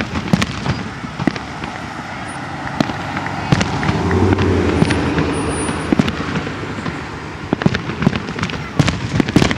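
Fireworks display: many sharp bangs and crackles of aerial shells bursting. A car drives past in the middle, about four to six seconds in.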